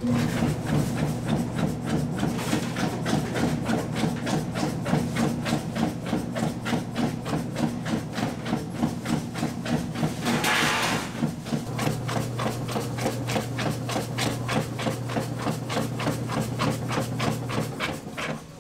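Electric sausage-stuffing machine running, a steady low hum with a regular knocking about four times a second, as it forces blood sausage filling into the casing. A short hiss comes about ten seconds in.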